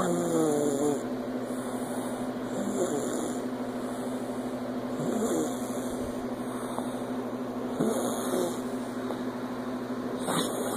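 Snoring: a short pitched sound with each breath, about every two and a half seconds, over a steady hum.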